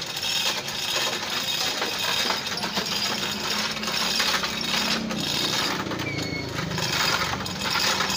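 Chain hoist ratcheting in rapid metallic clicks, its chains rattling as an engine hangs on it and is fitted into the engine bay.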